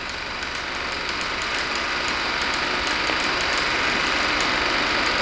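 Steady hiss of an old optical film soundtrack with faint irregular crackle, growing slightly louder.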